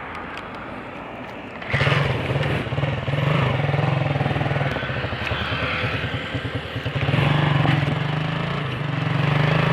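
Motorcycle engine running. It gets much louder about two seconds in, and its pitch then rises and falls as it revs.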